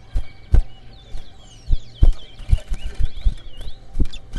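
Towa-towa seed finch twittering faintly in quick high chirps, over a series of sharp low knocks that are the loudest sounds.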